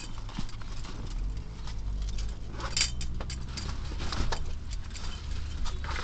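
Irregular small clicks and taps over a low, steady hum inside a parked car.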